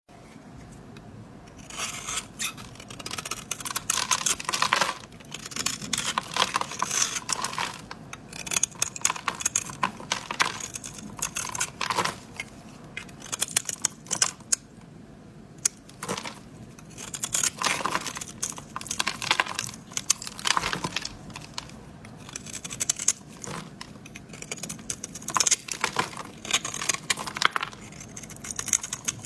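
A knife carving into a bar of dry soap: crisp crackling scrapes in spells of a second or two, repeated with short pauses.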